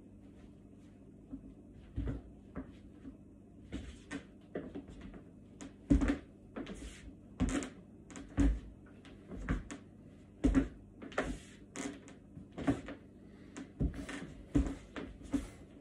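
Irregular thuds and scuffs of work boots stepping and stomping on a hard floor during martial-arts footwork, some with a quick swish of movement.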